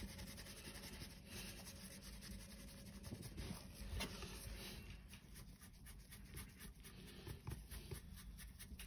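A flat brush's bristles scrubbing dry-brush paint onto a primed steel test sheet: faint, irregular scratching strokes, with a light tap about four seconds in.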